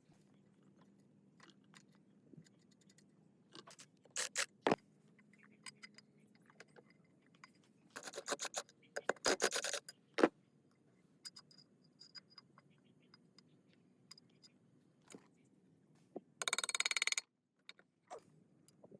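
Metal parts and hand tools being handled in a workshop: scattered clinks and taps, a stretch of rasping scrapes about halfway through, and a short, fast, rattling scrape near the end.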